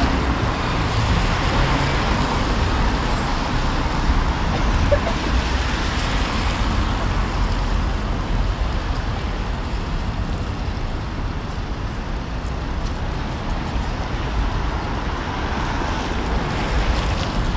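Steady city road traffic noise: an even rush of passing vehicles with a low rumble underneath.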